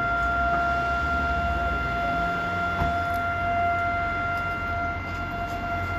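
A siren sounding one steady, unwavering tone, over a low street rumble.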